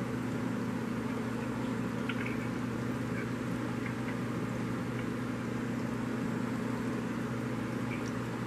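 Aquarium equipment running: a steady low electrical hum from the tank's pump or filter over a constant hiss of moving water, with a few faint small ticks.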